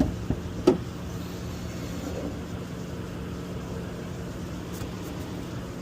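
Steady mechanical hum from a Dodge Challenger R/T, with a few sharp knocks in the first second, the loudest just under a second in.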